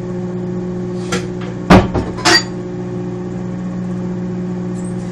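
Microwave oven running with a steady hum. About a second in come a few sharp knocks and clinks, like kitchenware being handled, the loudest a little before the two-second mark.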